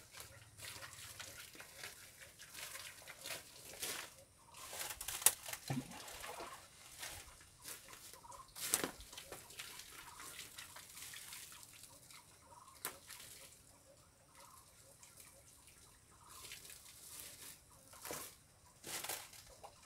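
Rubber boots stepping through dry leaves and twigs, making scattered crunches and rustles, with birds calling faintly in the background.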